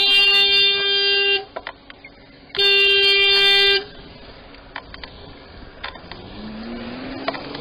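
Car horn held down in two long steady blasts, the first cutting off about a second and a half in, the second sounding for about a second just before the middle. After that it is quieter, with a few clicks and an engine speeding up, rising in pitch near the end.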